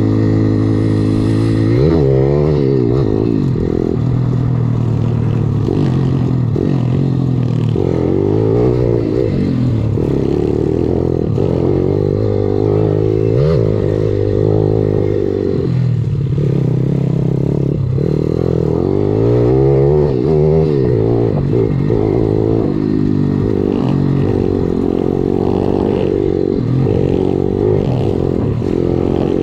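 Motorcycle engine heard close on board while the bike is ridden over a dirt trail. It revs up and down repeatedly, its pitch rising and falling with each throttle opening and gear change.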